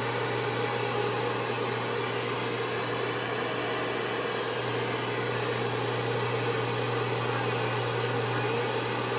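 CB radio receiver putting out steady static hiss with a constant low hum, an open channel with no one talking.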